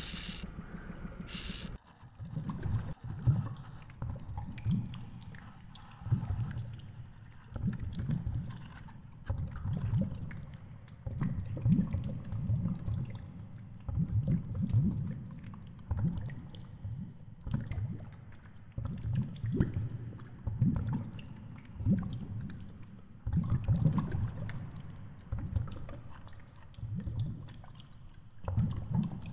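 A steady motor hum until about two seconds in. After that comes low underwater rumbling from a GoPro in its dive housing on a baited rig at the seabed: uneven surges roughly once a second, with small knocks.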